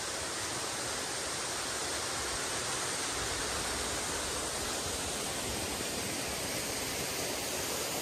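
Steady rushing of a waterfall and its rocky stream, an even hiss that does not change.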